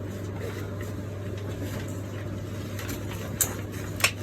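A steady low hum, with two sharp clicks about two-thirds of a second apart near the end.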